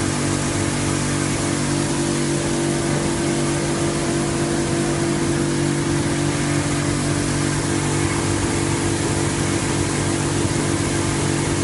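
Self-service car wash machine's high-pressure pump motor running with a steady hum, with the steady hiss of water spraying from the wash gun. The pump runs only while the gun is open.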